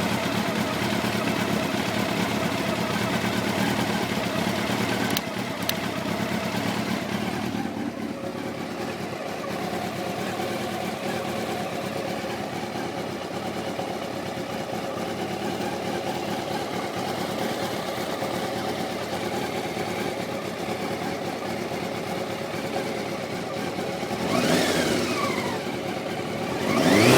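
A 1990 Honda CBR600's inline-four engine idles steadily, then is revved briefly twice near the end, the pitch rising and falling each time.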